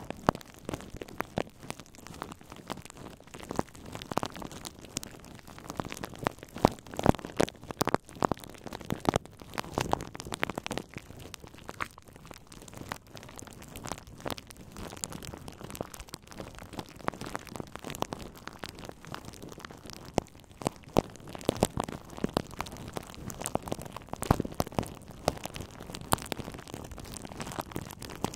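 Plastic bubble wrap squeezed and kneaded between the fingertips, making a dense, irregular crinkling and crackling with many sharp clicks.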